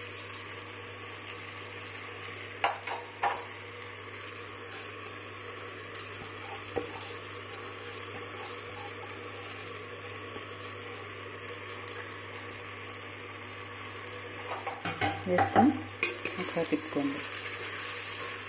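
Vegetables sizzling steadily in oil in a clay pot, with a few light knocks as soaked millet is scraped in from a bowl. Near the end comes a louder stretch of scraping and clatter as the mixture is stirred with a spatula.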